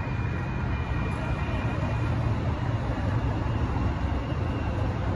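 Two-car CAF light rail train passing through a road crossing, a steady low rumble of the cars running over the tracks. A faint thin high tone fades away over the first couple of seconds.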